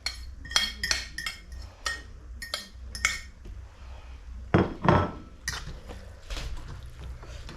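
A cooking utensil clinking against a metal pot: a quick run of ringing clinks over the first three seconds, then a couple of heavier knocks about halfway through, and lighter clinks after.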